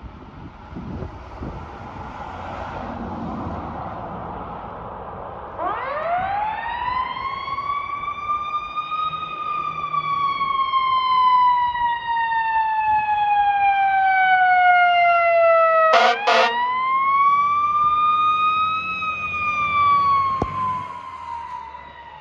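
A fire engine's siren winds up quickly to a high wail about six seconds in, then slowly winds down. It is broken by two short air-horn blasts about sixteen seconds in, after which the siren winds up and falls again. Before the siren starts, the truck's engine and road noise grow louder.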